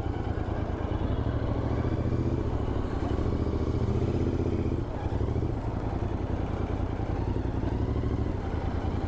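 Royal Enfield Continental GT 650's 648 cc parallel-twin engine idling steadily, with an even low pulsing beat.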